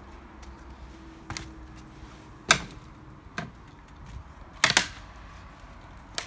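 A few sharp, irregular knocks and clatters from someone climbing down over broken bricks and burnt debris, the loudest about two and a half seconds in and a quick double knock near five seconds.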